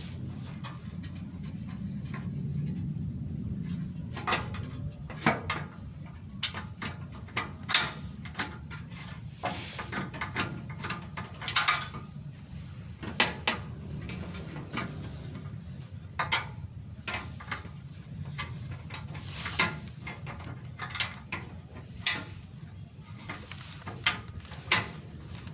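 Scattered, irregular clicks and clinks of hand tools on nuts and bolts as an engine cover is refitted, over a steady low hum.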